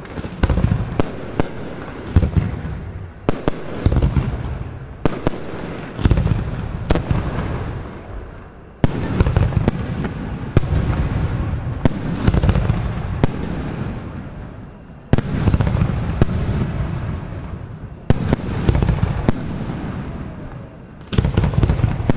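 Aerial firework shells bursting in quick succession, a string of sharp bangs each trailing off in echo, with deeper, heavier booms starting about nine seconds in and again several times towards the end.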